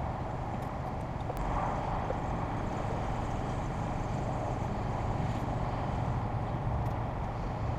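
Steady low rumble of a vehicle engine running, under a haze of outdoor background noise with a few faint ticks.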